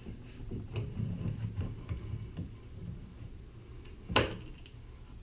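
Pipe clamps being slid along their pipes and set against a wooden molding flask: a run of small clicks and low knocks, then one sharp clack about four seconds in.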